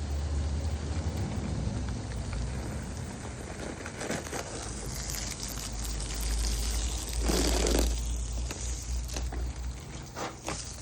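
Water from a garden hose spraying and pattering on plants and soil, a steady hiss with a low rumble underneath. There is a louder rush about seven seconds in and a few clicks near the end.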